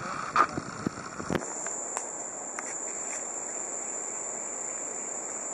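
Steady, high-pitched drone of rainforest insects, joined by a few sharp clicks in the first second and a half.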